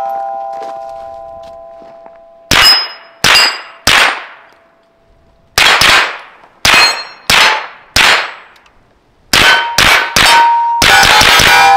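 Suppressed 9mm shots from supersonic ammunition. The steel targets clang and keep ringing with a steady tone after each hit. The shots come one or two at a time with pauses, then as a fast string near the end.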